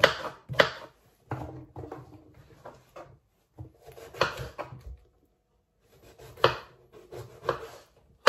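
Kitchen knife chopping vegetables on a wooden chopping board: two quick knocks of the blade on the board at the start, then slower, scattered cuts through a courgette and an aubergine, with a pause of about a second midway.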